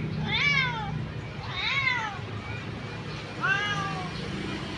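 A cat meowing three times, each meow rising then falling in pitch, about a second and a half apart.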